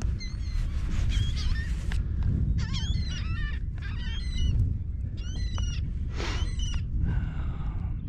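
A flock of birds calling overhead in quick, repeated squawks, thickest in the middle, over a steady low rumble.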